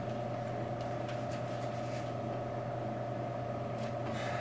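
Steady background machine hum holding two constant tones, one low and one mid-pitched, with faint paper rustling near the end as a sheet is handled.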